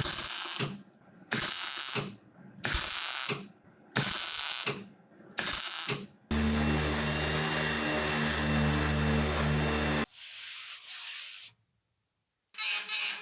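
Metalworking shop sounds: five rasping strokes, about one every second and a half, then a power tool running steadily for about four seconds before cutting off, and a shorter, softer burst after it. A rapid rhythmic clatter starts near the end.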